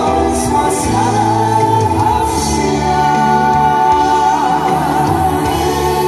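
Two male singers performing a Korean trot song live, singing with long held notes over backing music, heard through the stage's PA speakers.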